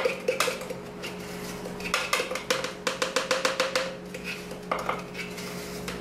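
A metal spoon stirring inside a plastic cup, clicking and scraping against the sides in quick taps, fastest from about two to four seconds in.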